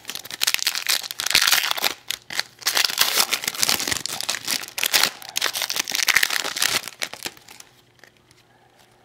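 Foil wrapper of a Panini Select hockey card pack being torn open and crinkled: a dense crackling rustle that stops about seven seconds in.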